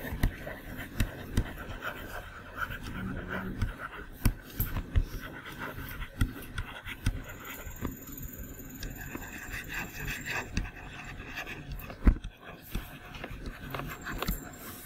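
A stylus tapping and scratching on a tablet screen during handwriting: irregular light taps, with one louder knock about twelve seconds in.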